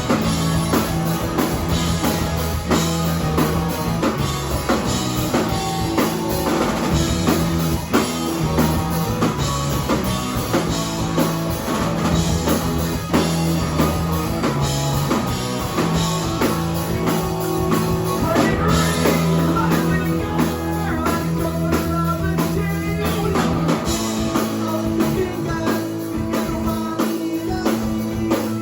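Rock band playing live: fast drum kit, guitars and bass, with singing.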